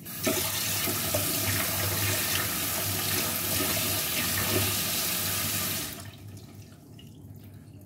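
Kitchen tap turned on and running into a sink, a steady rush of water that stops abruptly after about six seconds.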